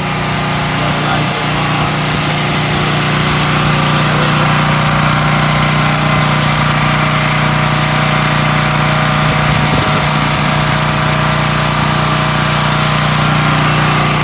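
Champion 9000/7000-watt portable gasoline generator running steadily under load while it powers a central air conditioner and house circuits. The sound grows louder over the first few seconds, then holds even.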